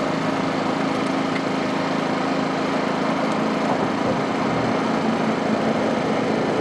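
A small engine or motor running steadily with an unchanging droning hum.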